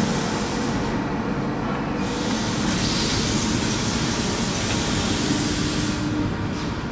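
Steady, loud mechanical noise of heavy industrial machinery running.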